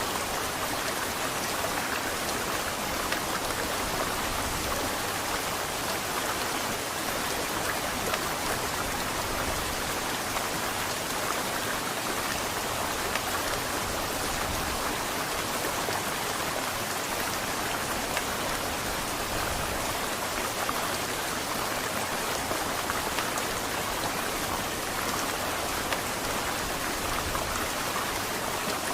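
Heavy rain falling steadily, a dense even patter with no thunder.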